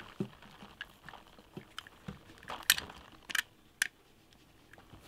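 Utility knife blade cutting through a small clear plastic syringe barrel against a wooden board: irregular crunching and clicking, with three sharp cracks between about two and a half and four seconds in.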